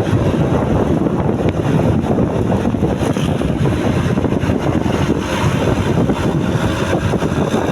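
Steady, loud wind noise buffeting the microphone, mixed with the rumble of road traffic.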